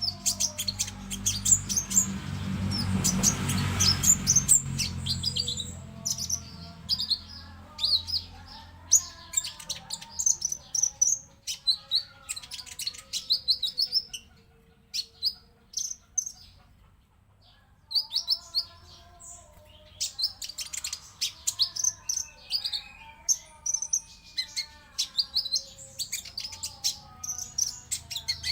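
Konin white-eye singing: rapid, high twittering chirps and trills in quick runs, with a pause of a few seconds about halfway. A rushing noise with a low hum sits under the song in the first few seconds.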